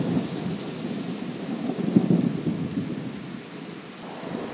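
Rumbling thunder with a hiss of rain, uneven and slowly dying away.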